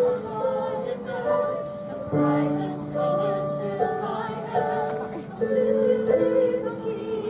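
Mixed-voice amateur chorus singing in harmony, amplified through stage speakers, holding chords that change every second or so.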